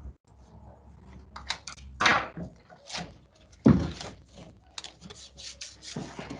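Hands handling hard parts and packaging: a string of knocks and thuds with light clicks and rattles between them, the loudest thud about three and a half seconds in.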